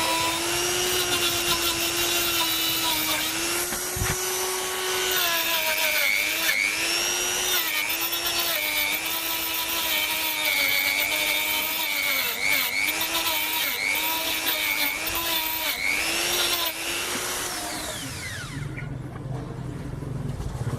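Small electric power tool motor running at high speed with a steady whine. Its pitch dips again and again as it bears on the workpiece. It is switched off near the end and winds down.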